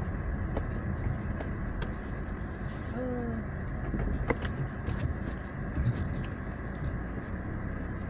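Car driving slowly, heard from inside the cabin: a steady low engine and tyre rumble with a few faint clicks. A brief voice sound comes about three seconds in.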